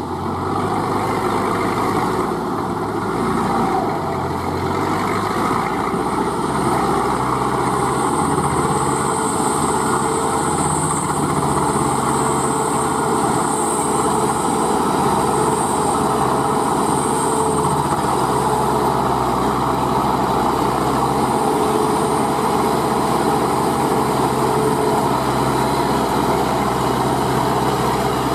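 Diesel engine of a homemade crawler-track paddy tiller running steadily under load as it drives and tills through flooded, muddy rice field; it grows a little louder in the first second.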